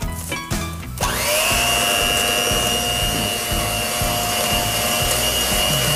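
Electric hand mixer switched on about a second in and running at a steady speed with a constant whine, its beaters whisking soft cake batter in a glass bowl.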